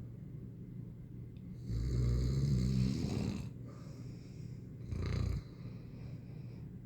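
A sleeping person snoring: one long snore with a fast flutter starting about two seconds in and lasting nearly two seconds, then a shorter snore about five seconds in.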